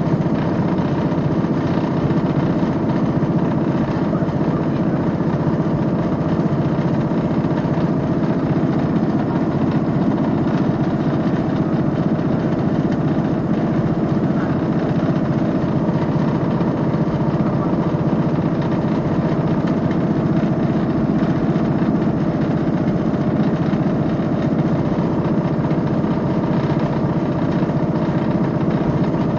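Diesel train running steadily, heard from inside the carriage: a constant engine drone with several held tones, unchanging throughout.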